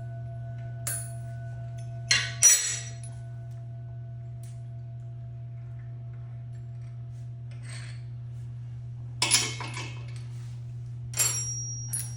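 Metal tool parts clinking and clanking as a harmonic balancer installer tool is backed off and handled, with the loudest clanks about two seconds in and more near nine and eleven seconds, over a steady low hum.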